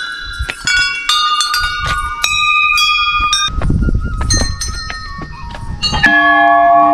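Hanging metal temple bells struck one after another, their clangs overlapping and ringing on. About three and a half seconds in, the strikes thin out under a low rumble. About six seconds in, a large bell is struck and rings with a deep, loud tone.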